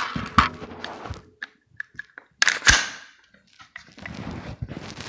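An AR-15-style 5.56 carbine being cleared: sharp metallic clicks and clacks as its action is worked, the loudest about two and a half seconds in. Rustling as the rifle is handled comes near the end.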